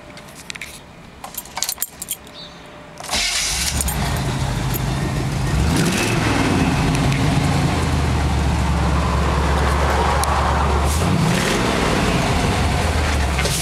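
Keys jangling, then about three seconds in the Corvette V8 engine of a 1954 Chevy half-ton pickup starts and keeps running with a steady low hum.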